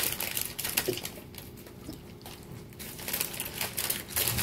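Snack packaging crinkling and crackling as it is handled, in irregular bursts that get busier near the end.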